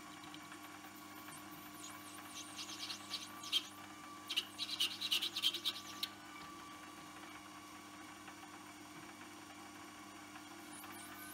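Metal lathe running with a steady motor hum and a thin whine while the cutting tool turns the white Delrin end of an aluminium hammer head. From about two to six seconds in, a run of sharp, scratchy crackles as the tool cuts and the plastic chips come off.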